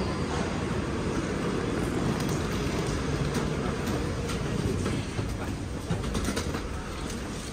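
Steady rumble and hiss of a London Underground train standing at the platform with its doors open, with a few light clicks in the second half.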